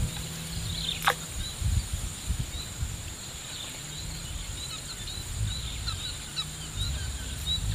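Swamp ambience: a steady high insect drone with many short, scattered bird chirps over a low rumble, and one quick falling whistle about a second in.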